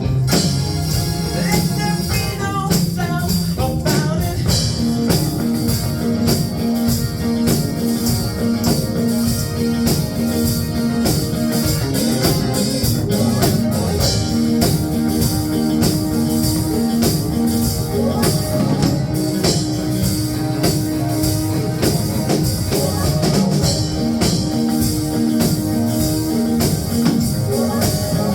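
Rock music with a steady beat running throughout, with sustained bass notes under it.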